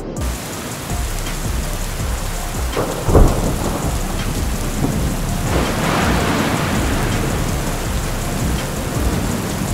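Storm noise of wind and rain: a steady hiss over low rumbling, with a loud sudden rumble about three seconds in and a swell in the middle.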